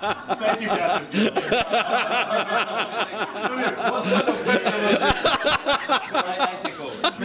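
A group of people laughing together, with many voices and chuckles overlapping.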